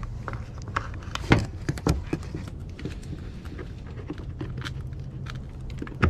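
Scattered clicks and taps of small metal parts and hand tools as a chain brake spring is worked back into a chainsaw's clutch cover, with two sharper knocks a little over a second in and near the two-second mark, over a steady low hum.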